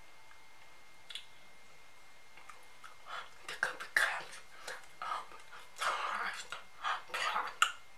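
A woman's breathy whispered exclamations in short irregular bursts, starting about three seconds in.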